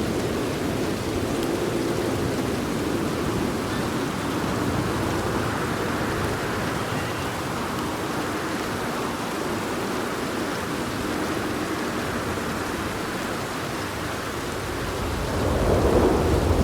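Steady heavy rain, with a low rumble of thunder building up near the end.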